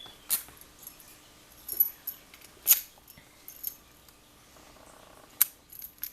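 Best SFIC padlock and its removable core being handled: a handful of sharp metal clicks and clinks with a bright metallic ring, spaced about a second apart.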